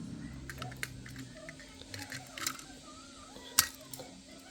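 Scattered light clicks and taps of small hard objects being handled, one sharper click about three and a half seconds in, over a faint steady low hum.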